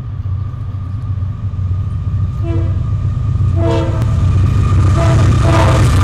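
Air horn of an approaching CSX freight train's lead locomotive sounding about four short blasts, the first two and a half seconds in and the last two close together near the end, a horn show for the railfan. Under them the low rumble of the diesel locomotives grows steadily louder as they near and reach the microphone.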